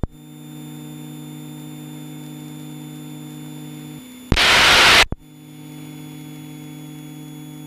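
Steady low electrical hum in the aircraft's intercom audio, with a loud burst of rushing noise lasting under a second, about four seconds in.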